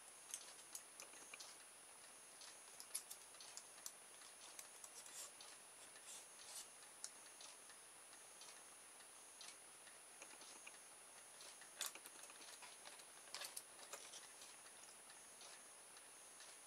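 Faint, irregular light clicks of small metal armature plates tapping together as they are handled and stacked on a thin rod.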